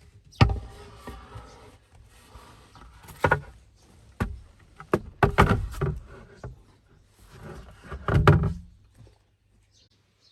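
A run of knocks, clunks and clicks from things being handled and set down inside a van, with rustling between them. The loudest thuds come about half a second in and again about eight seconds in.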